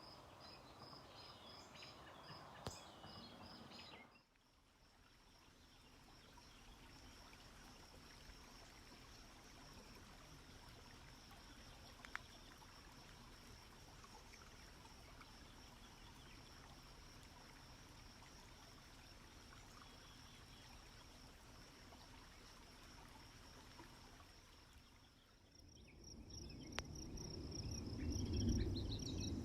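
Insects trilling on one high, steady note against faint outdoor background noise; at the start the trill comes in quick pulses of a few a second. Near the end a louder low rushing noise comes in under the trill.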